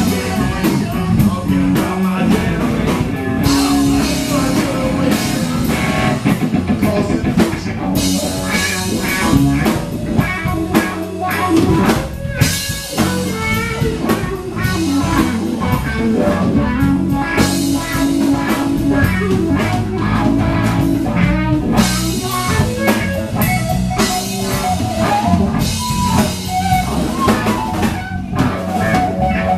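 Live rock band playing an instrumental passage on electric guitar, bass guitar and drum kit, with no singing. The cymbals come in and out in stretches of a few seconds.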